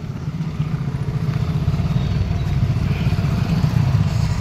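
Motorcycle engine running at low speed, a steady low putter that grows a little louder about half a second in.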